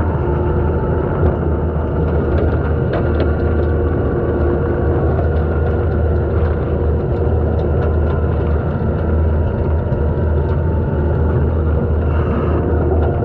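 Takeuchi TL250 compact track loader's diesel engine running under load while its hydraulic skid-steer brush cutter spins, mowing through brush and weeds. Steady engine and hydraulic hum throughout, with many sharp ticks of cut debris striking the cutter.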